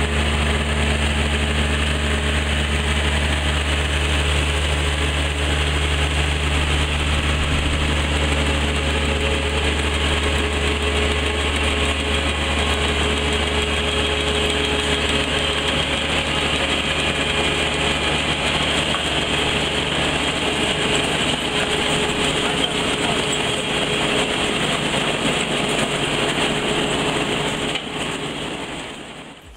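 Tractor engine running steadily under load during potato harvesting, with a constant low hum and machinery noise; it fades out near the end.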